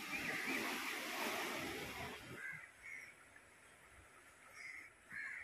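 Crows cawing several times in short calls, over a rushing noise that fills the first two seconds.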